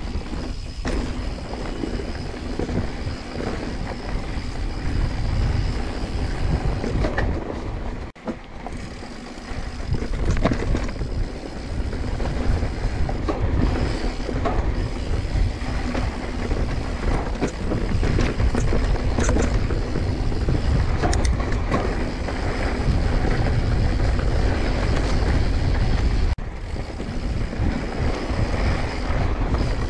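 Mountain bike rolling fast over a dry, rocky dirt trail: heavy wind buffeting on the camera microphone, with tyre noise and the clatter of the bike over rocks. The noise dips briefly twice, about eight seconds in and again near the end.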